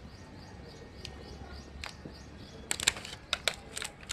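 Packaging being handled: a quick cluster of sharp crackles and clicks about three seconds in, over faint bird chirps.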